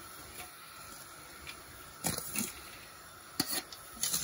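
A spoon scraping and knocking against a cooking pot as drained boiled rice is spooned on as the top layer of a biryani. It is quiet for about two seconds, then come a few soft scrapes and knocks, the sharpest about three and a half seconds in.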